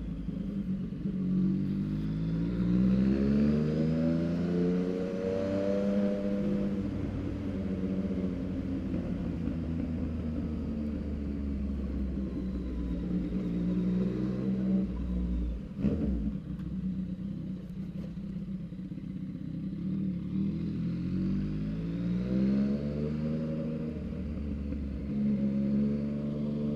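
Yamaha MT-09's three-cylinder engine on a Mexx full exhaust, ridden on the road, its revs climbing through acceleration early on, holding fairly steady through the middle and climbing again near the end. A single sharp knock comes about two-thirds of the way through.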